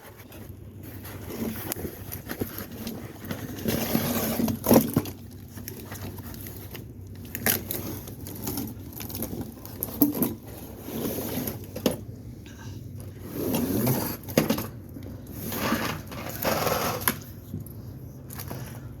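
Cardboard and plastic packaging scraping and rustling as an electric pole saw is pulled out of its box, with several sharp knocks and clicks along the way.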